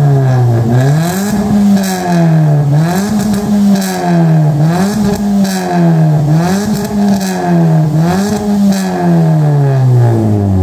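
Toyota Agya 1.2's four-cylinder engine revved over and over through a racing exhaust whose resonator has been replaced by a straight pipe, ending in an HKS muffler. The revs climb and drop back every second or so.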